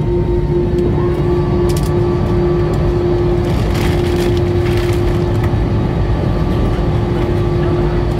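Airbus A321-200 jet engines running at ground idle, heard inside the cabin as a steady rumble with a constant hum. A second, higher tone rises slightly about a second in.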